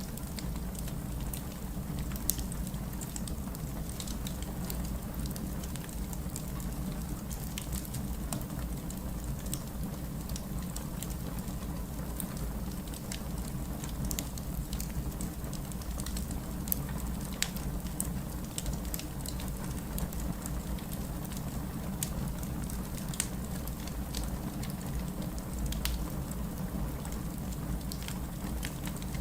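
Fireplace crackling: many small, sharp pops scattered irregularly over a steady low rumble.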